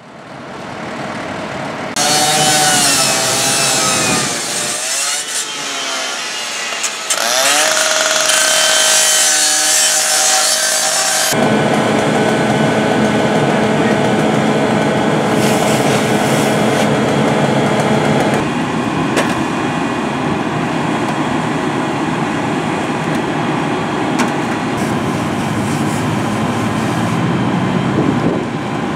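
Fire engine siren wailing and yelping, its pitch sweeping up and down. After a sudden cut about eleven seconds in comes a steady loud rushing hiss with a steady drone under it: a fire hose spraying water onto a burning car, with the engine's pump running.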